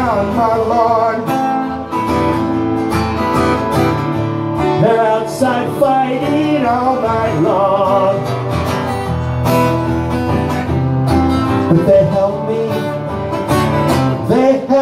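A man singing live over his own strummed acoustic guitar.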